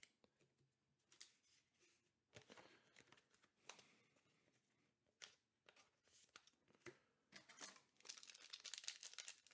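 Faint rustles and light taps of trading cards being set down on a table, then, from about eight seconds in, a MetaZoo Nightfall foil booster pack wrapper crinkling and tearing as the next pack is opened.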